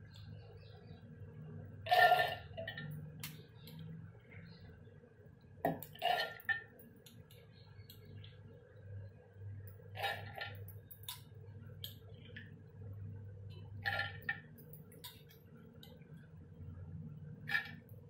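Stainless steel kitchen vessels, pots and a mixer-grinder jar, being handled and set down: about six sharp clinks and knocks a few seconds apart, the loudest about two seconds in, over a steady low hum.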